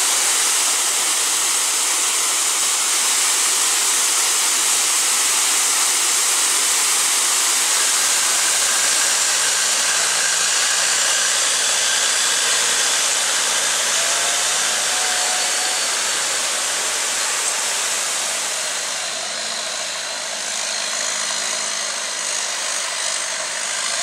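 Water rushing over a tiered waterfall, a steady loud hiss. About a third of the way in, the low drone of a boat engine comes in and runs steadily under the sound of the water.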